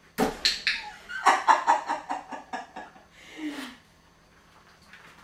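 A person laughing: a loud burst, then a quick run of cackling pulses that die away over about three seconds, ending in a short falling breathy sound.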